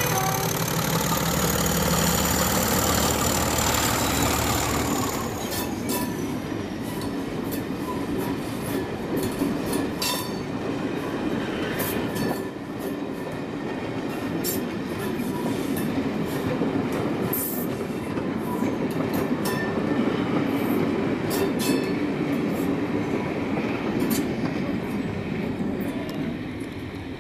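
Class 31 diesel locomotive 31108, with its English Electric V12 engine, running as it passes close by for the first five seconds or so, with a high whine that falls away. Then its coaches roll past, wheels clicking over the rail joints again and again.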